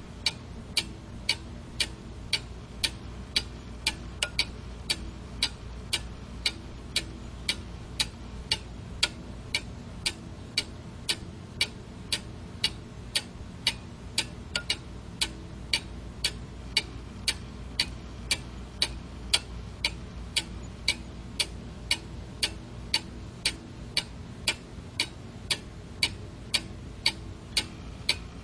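Quartz alarm clock ticking steadily, about two sharp ticks a second, over a faint low hum.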